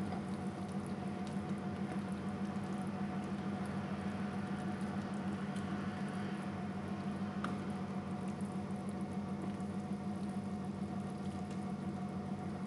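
Thick cream-and-cheese Alfredo sauce simmering in the pan, bubbling steadily with a fine, even patter.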